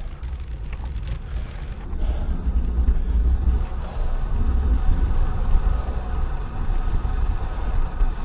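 Wind buffeting the microphone of a camera on a moving bicycle: a fluctuating low rumble.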